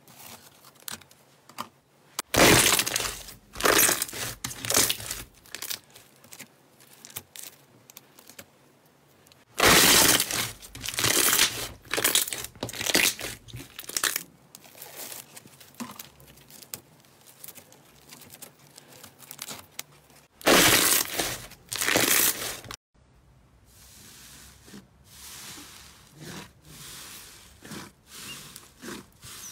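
Clear slime pressed through a wire cooling rack and pulled against the wires, with three loud bursts of crackling and squelching between quieter crackles. After a sudden cut near the end, softer squishing of fluffy slime kneaded by hand in a glass bowl.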